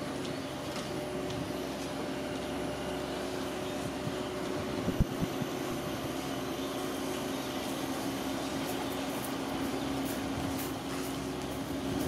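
Steady mechanical hum of urban background noise, with several even tones held throughout. There is a sharp knock about five seconds in.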